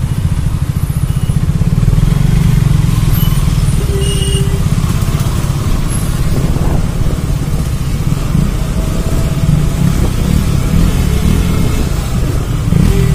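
KTM RC 390's single-cylinder exhaust running at low speed just ahead, mixed with the engine of the motorcycle carrying the camera, a steady low engine pulse in slow traffic. A short horn-like tone sounds about four seconds in and again near the end.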